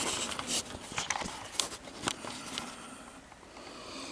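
Light clicks and knocks of plastic as a modular ice maker and its snap-on white front cover are handled, several in the first couple of seconds, then quieter.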